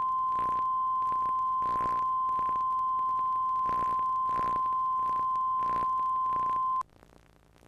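Steady single-pitch line-up tone of the kind that accompanies colour bars on a broadcast videotape, with faint crackles from the tape. It cuts off suddenly near the end, leaving only faint tape hiss.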